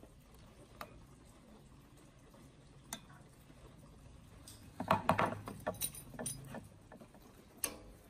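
Light metallic clicks and scrapes of a screwdriver working a rusted screw on an old ceiling fan's steel blade bracket. A busier run of metal clicks and rattles comes about five seconds in, and a single sharp click near the end.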